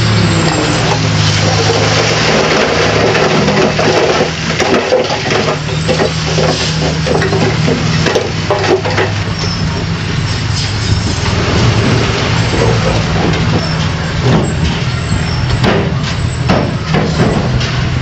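Diesel engine of a heavy earthmoving machine running steadily under load, with irregular clanks and knocks, thickest in the middle and near the end.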